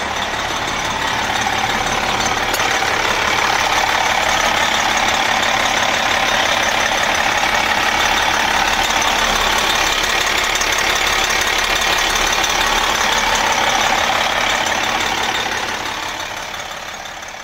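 Detroit Diesel Series 60 inline-six diesel engine in an MCI coach, running steadily, fading out near the end.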